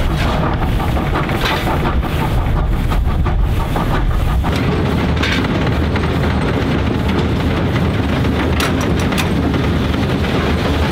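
NZR Ww class steam locomotive working a heavy train: a loud, continuous rumble of exhaust and running gear, broken by sharp cracks at uneven intervals.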